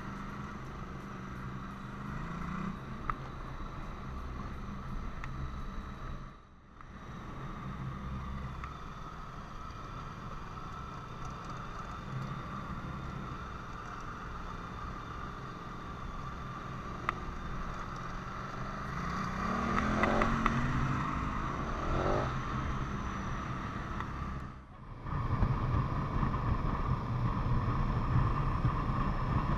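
Large V-twin adventure motorcycle running steadily under way. Its pitch rises twice about twenty seconds in as it accelerates. The sound drops out briefly twice, once about six seconds in and once near the end.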